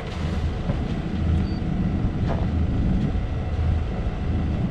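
A sailing yacht's inboard diesel engine idling steadily in neutral with a low, even running sound.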